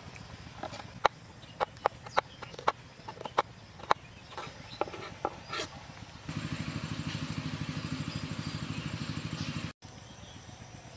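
A kitchen knife chopping on a wooden cutting board, a string of sharp irregular taps. About six seconds in, a louder steady, rapid, evenly pulsing sound takes over and is cut off abruptly near the end.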